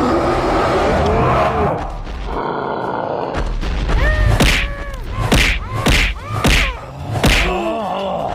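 Cartoon action sound effects over music: a dense rushing noise, then a run of about six heavy booming hits with short swooping tones.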